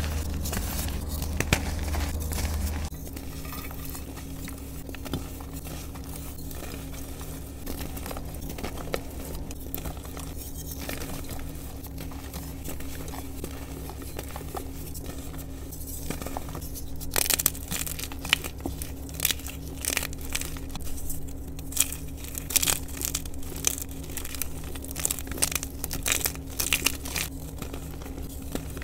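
Fingers crushing soft reformed dyed gym chalk: powdery crumbling and crackling, with a run of sharper, louder crunches in the second half. A steady low hum sits underneath.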